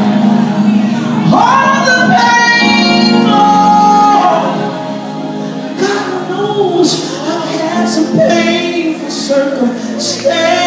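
Gospel worship singing led by a woman's voice, long notes held steady in the first half and then sung with a wavering vibrato, other voices joining in.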